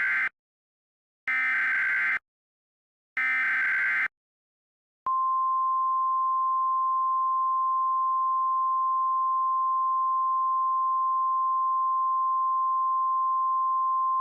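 Emergency Alert System header: screeching digital data bursts about a second long, two full ones after the tail of a first, each repeating the coded header. About five seconds in comes the long, steady, single-pitch EAS attention tone.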